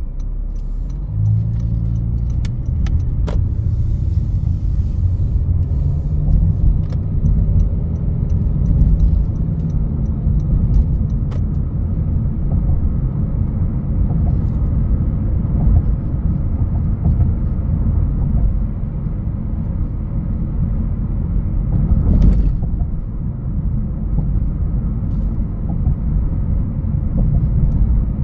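A 2021 Honda HR-V's 1.8-litre four-cylinder and its tyres on the road while driving: a steady low rumble of engine and road noise. A single sharp thump comes about 22 seconds in.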